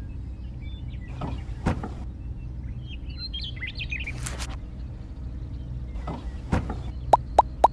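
A steady low mechanical hum with a few short hissing swishes over it, and bird chirps about midway. Near the end, a quick run of plops starts, about four a second.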